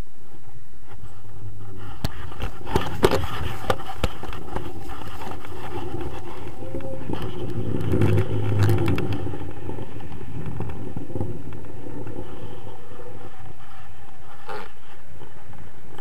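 Wind rushing and buffeting over an action camera's microphone in paraglider flight, a steady low rumble that swells briefly about halfway through. A few sharp knocks about two to four seconds in.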